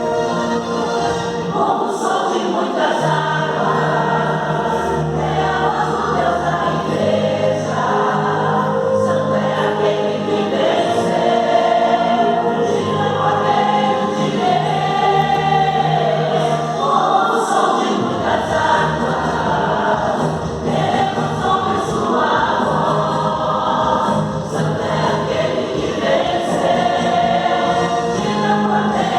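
Mixed church choir singing a Christian praise song with accompaniment. A low steady tone holds underneath from a few seconds in until about halfway through.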